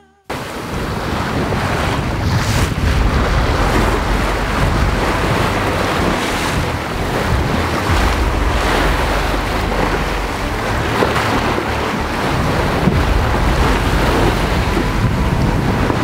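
Sailing yacht's hull rushing through rough seas: water washing and breaking along the side, with wind rumbling heavily on the microphone. The sound cuts in abruptly just after the start and stays loud and steady.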